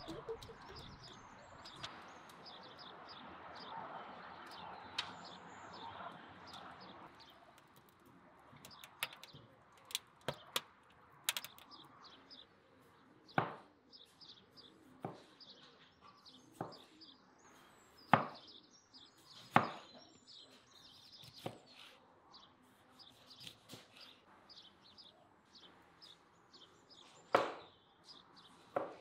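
A kitchen knife slicing a tomato on a plastic cutting board, the blade knocking on the board about a dozen times at irregular intervals from about eight seconds in. Small birds chirp in the background throughout.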